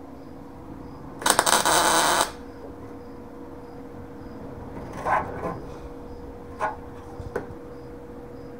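A MIG welder laying a short tack on a sheet-steel patch panel: about a second of loud, dense crackling, followed by a few light metallic clicks and taps as the panel is handled. A faint steady hum underlies it.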